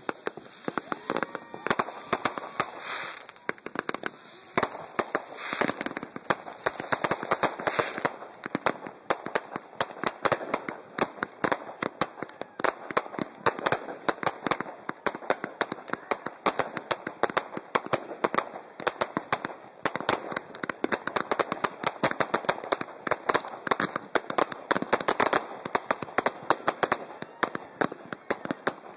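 Fireworks going off in rapid succession: a dense run of crackling pops and bangs, with a few louder stretches in the first several seconds.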